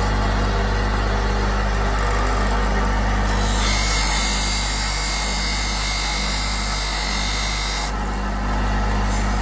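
Motor-driven grinding wheel running with a steady hum while a high-carbon steel knife blade, cut from an old band saw, is ground against it. From about three and a half seconds in until about eight seconds, the grinding turns louder and hissier, with a steady high ring.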